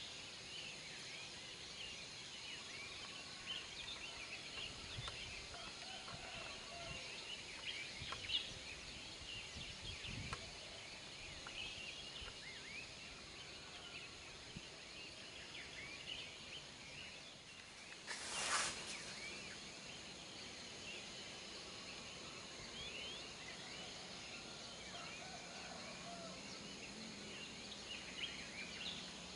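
Outdoor ambience of many birds chirping and twittering over a steady high insect drone. A short rush of noise breaks in about two-thirds of the way through.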